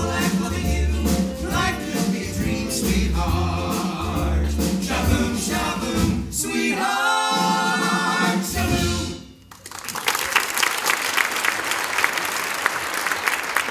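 Male vocal group singing a doo-wop number in close harmony over a band with a steady bass beat, ending on a long held chord. Just after the song ends, about two-thirds of the way in, an audience breaks into loud applause.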